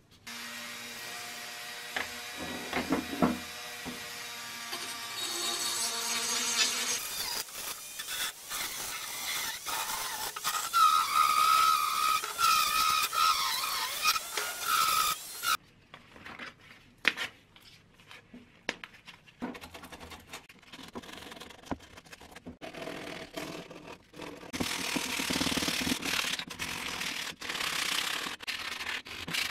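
Flexible-shaft rotary tool grinding a cast-metal balance part with a small abrasive bit: a steady run with a whine that wavers under load, cutting off suddenly about halfway. Then come scattered clicks and scraping, and near the end steady rubbing strokes of hand sanding with an abrasive sponge on the metal.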